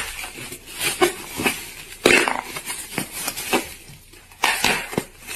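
A clear plastic bag crinkling and rustling as hands squeeze and handle it, in a run of irregular crackles.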